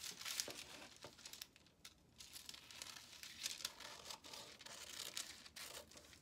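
Quiet snips of scissors cutting through pattern paper, with the paper rustling as it is handled.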